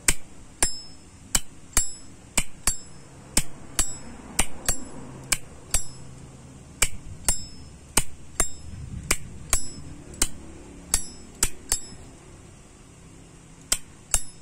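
Zippo lighter's hinged lid flipped open and snapped shut about a dozen times, each flip a pair of sharp, ringing metallic clinks, with a short pause near the end. It is the case's clink, called very nice.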